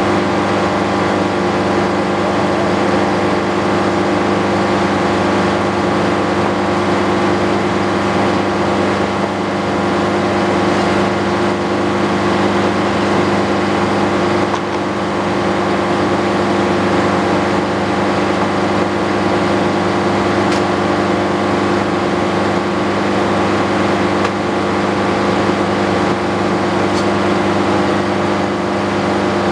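Antique circular sawmill running steadily, with an even, unchanging pitch and level.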